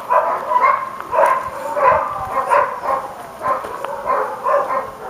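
A dog barking in a quick string of short, fairly high-pitched barks, about two or three a second.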